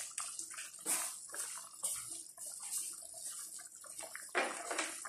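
Chicken tinola broth with green papaya boiling in a pan, bubbling with irregular small pops.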